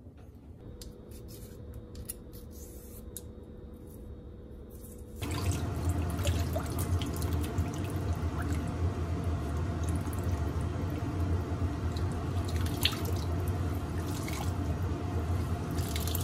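Kitchen tap running into a plastic basin of shredded lotus rootlets as they are rinsed by hand; the water comes on suddenly about five seconds in and then runs steadily. Before that there are only a few faint clicks.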